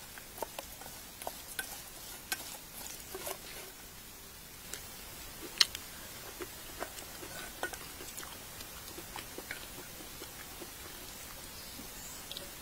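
Food being stirred in a pan over a faint sizzle: irregular light clicks and scrapes of a utensil, with one sharper click about halfway through.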